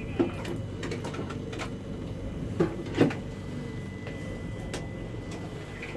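Light clicks and taps of fishing tackle being handled while a jig is rebaited, with two louder short sounds about halfway through. A steady low hum and a faint high steady tone run underneath.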